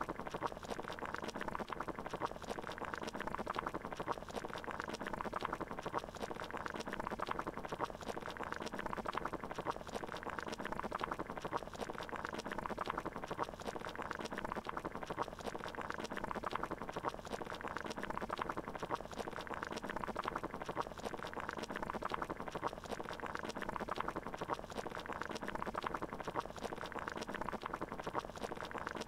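Water boiling in a pot: steady, dense bubbling and popping.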